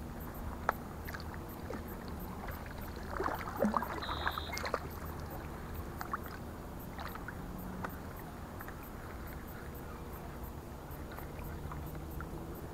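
Small kayak being paddled: paddle splashes and drips, with light knocks and clicks on the hull, busiest about three to five seconds in.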